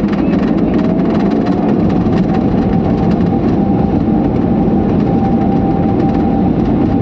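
Steady, loud rumble of a moving vehicle, with a faint thin whine that rises a little and then holds.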